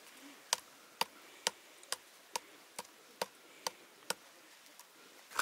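Sharp, evenly spaced ticks or light knocks, about two a second, stopping about four seconds in.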